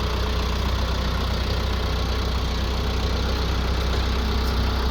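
Branson F Series compact tractor's diesel engine idling steadily, freshly started.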